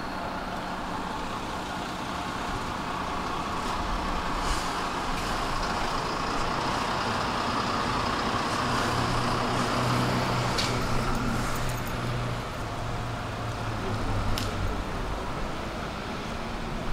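Street traffic noise, with a motor vehicle's low engine hum swelling and fading through the middle and a few sharp clicks.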